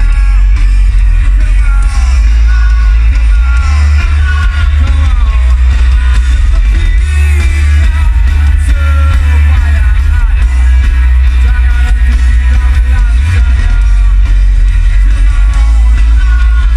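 Live rock band playing loudly with a singer over a heavy bass.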